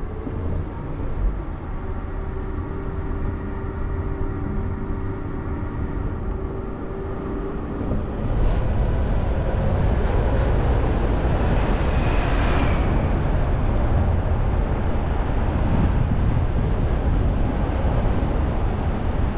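Car on the move: engine hum with tyre and road noise, getting louder about eight seconds in, with a short click just after.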